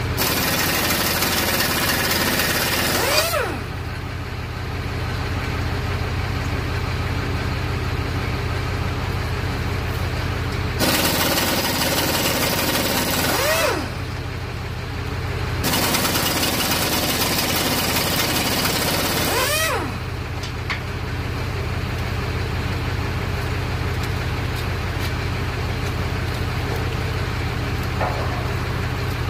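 Handheld air-powered cutoff tool run in three bursts of a few seconds each, breaking off engine bolts that spin and won't come out; each burst ends with the tool winding down in pitch. A steady low engine idle hums underneath.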